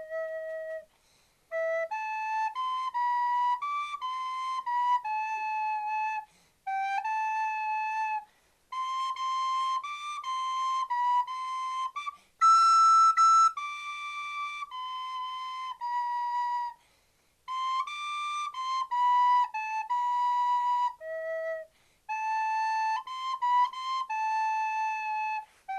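Solo flute playing a slow melody, one note at a time, in phrases with short breaths between them. One higher note about halfway through is the loudest.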